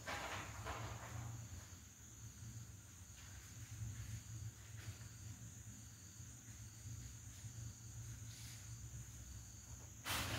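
Faint crinkling of a thin plastic bag as kittens bat and step on it, a few soft rustles with a louder one near the end, over a steady high-pitched whine and a low hum.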